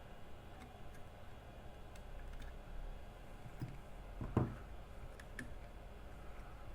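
Small clicks and light taps of hand tools on a laptop circuit board and workbench, with one louder knock about four and a half seconds in, over a low hum.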